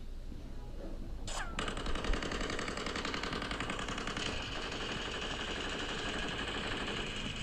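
Sustained rapid machine-gun fire: a dense, even rattle of shots that starts about a second and a half in and keeps going without a break.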